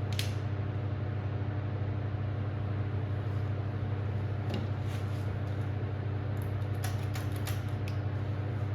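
Steady low mechanical hum, with a few light clicks and taps near the end.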